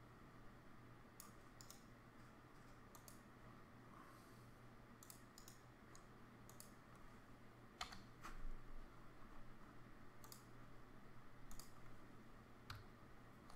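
Faint, scattered clicks of a computer mouse and keyboard as names are selected, copied and pasted into a web form, over a low steady hum.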